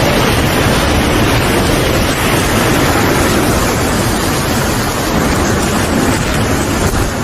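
Loud, steady rushing noise of a storm, with no distinct events.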